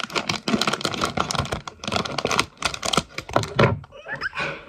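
Blind-box packaging being cut open and handled: a dense run of rapid crackling clicks that eases off near the end.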